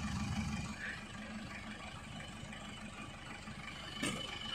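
Jeep CJ7 engine running steadily with a low rumble as the Jeep crawls slowly over rough off-road ground.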